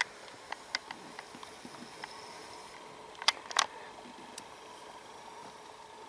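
Scattered sharp clicks and knocks over a faint steady hiss, with two louder knocks close together about three and a half seconds in.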